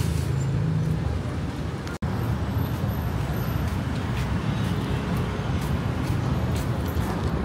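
Street traffic noise: a steady low rumble of cars and taxis running nearby. The sound drops out for an instant about two seconds in, then the same steady city noise carries on.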